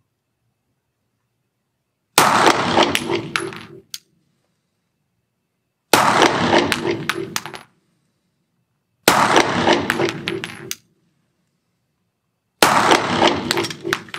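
Four single 9mm pistol shots from a Glock 17 Gen 4, spaced about three to four seconds apart. Each shot trails off in a long echo lasting about a second and a half.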